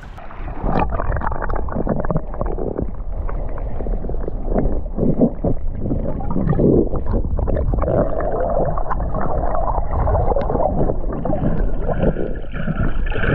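Water gurgling and sloshing as heard by an action camera held underwater: a dense, muffled churning with the high end cut off. It brightens a little near the end.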